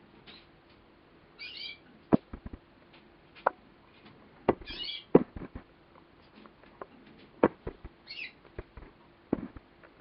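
Male Gloster corona canary giving short chirps, four brief high twitters about three seconds apart, with sharp clicks and taps between them that are louder than the calls.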